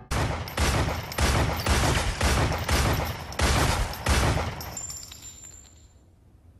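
Semi-automatic pistol fired rapidly, about a dozen shots at two to three a second, then the shooting stops and the sound dies away.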